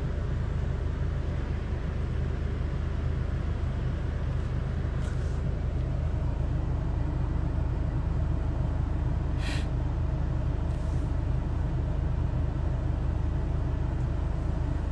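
A parked van idling, heard from inside the cabin as a steady low hum. A few brief rustles come over it.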